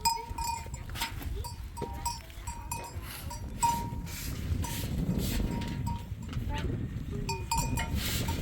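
Bells on grazing livestock ringing in short, irregular dings, over a low rumble.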